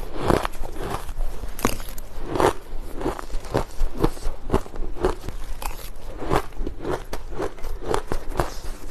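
Crushed ice being bitten and chewed close to the microphone: a run of sharp crunches, two or three a second.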